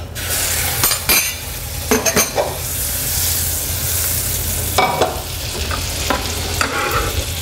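Butter melting and sizzling in a hot stainless-steel saucepan, a steady hiss. A few knocks and scrapes of a spoon and a chef's knife break in about a second, two seconds and five seconds in.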